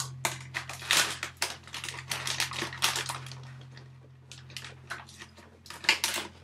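Crinkling and rustling of a plastic snack packet being handled, a dense run of irregular crackles that thins out and comes back in a brief flurry near the end, over a steady low hum.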